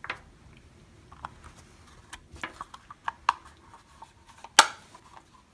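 Scattered small clicks and knocks of a small electronics case being unplugged from its USB power cable and handled, with one sharper, louder click about four and a half seconds in.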